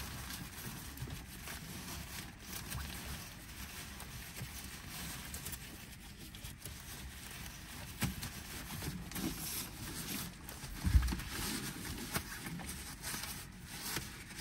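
Rustling and crinkling of reflective foil window covers being handled and pressed into place around a pickup truck's windshield, with scattered light knocks and one louder thump about eleven seconds in.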